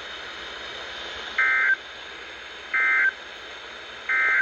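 Three short bursts of warbling two-tone digital data, each about a third of a second long and roughly a second apart: the EAS (SAME) end-of-message signal closing an alert. A steady radio hiss runs underneath.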